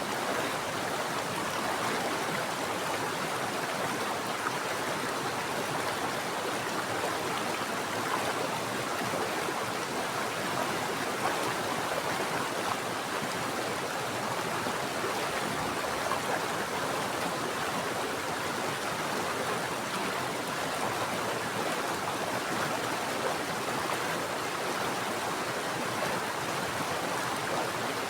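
A mountain stream flowing steadily over rocks, an even rushing water sound with no change.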